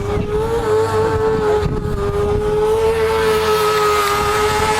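Sport motorcycle engine held at high revs, its pitch almost steady with slight wavering, as a stunt rider keeps the throttle open.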